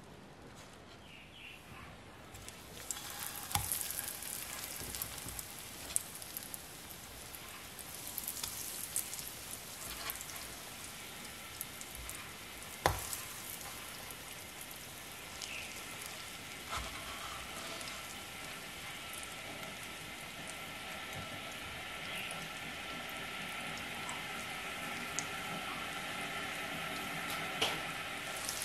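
Breadcrumb-coated zucchini sizzling as it fries in shallow oil in a pan. The sizzle comes up about two seconds in and keeps on, with scattered pops and a few sharp clicks.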